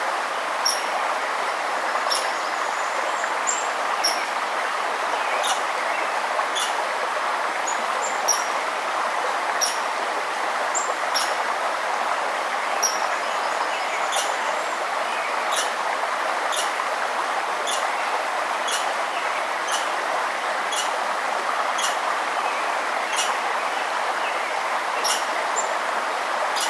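A stream or river flowing steadily, with a small bird giving short, high chip notes about once a second over the rushing water.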